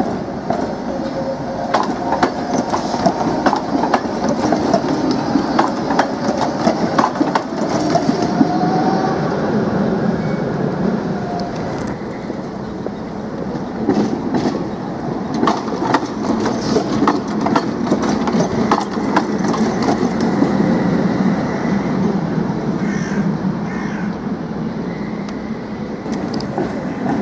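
Tatra electric trams passing close by, running with a steady rumble while their wheels click irregularly over rail joints and track crossings.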